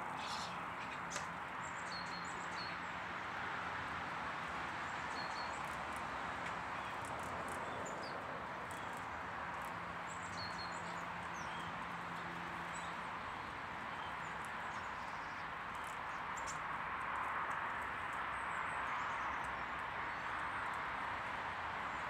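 Small garden birds chirping with short, high calls scattered through, over a steady outdoor hiss, with a few sharp clicks.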